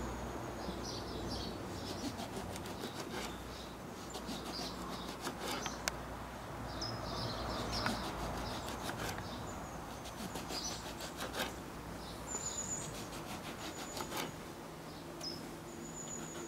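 Small kitchen knife slicing an eggplant into rounds on a wooden cutting board, with irregular sharp taps as the blade goes through and meets the board. Small birds chirp throughout.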